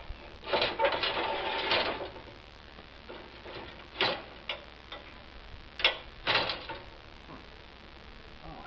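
Mechanical clicking from work on a homemade crop sprayer's boom: a rapid run of clicks for about a second and a half, then several single sharp clicks and knocks.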